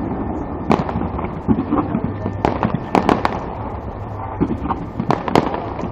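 Aerial fireworks going off: scattered sharp pops and crackles, irregularly spaced, several close together around the middle.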